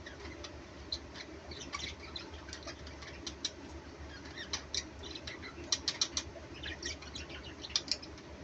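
Pet budgerigars and lovebirds chirping in short, quick high notes, scattered at first and bunching into busier chatter in the second half, over the steady low hum of an evaporative air cooler.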